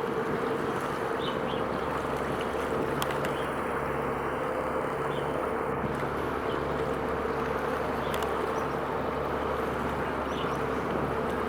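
Steady engine drone with a constant hum and a slow pulsing low throb, over a haze of wind and water noise.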